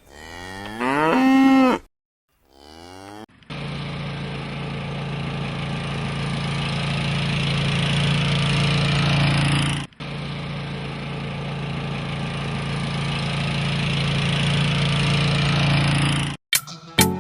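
A cow moos once, followed by a fainter second call. Then a tractor engine runs steadily for about thirteen seconds, with a brief break about ten seconds in.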